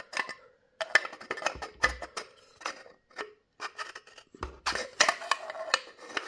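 Aluminium tactical beer mug being handled and its parts fitted together: a run of light metallic clicks and scrapes, densest about five seconds in, with a couple of dull knocks.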